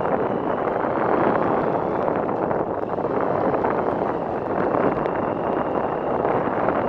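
Steady rushing of the Webuye Falls cascades on the Nzoia River, an even, unbroken noise of falling water, with some wind on the microphone.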